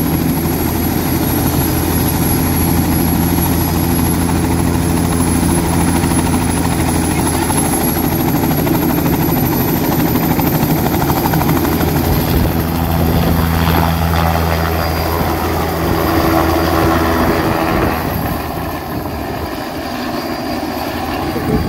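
Turbine helicopter with a two-bladed main rotor running loud and steady on the pad, with a high thin whine that creeps up in pitch. About eighteen seconds in the sound drops as the helicopter lifts off and flies away.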